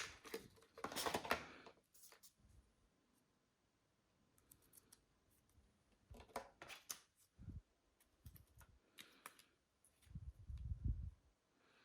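Retail packaging of computer memory being handled and opened by hand: scattered plastic and cardboard clicks and rustles, a longer rustle at the start and a low handling bump near the end.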